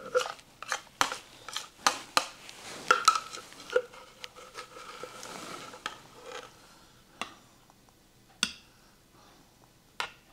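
Cutlery clinking and scraping against a dish: a quick run of sharp knocks in the first four seconds, one leaving a ringing tone that fades over about three seconds, then a few scattered knocks.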